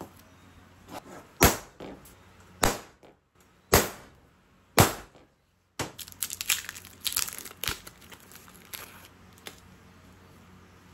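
Centre punch struck four times, about a second apart, marking hole positions on an iron mounting disc, each strike ringing briefly. Then a paper template crackles and tears as it is peeled off the disc's face.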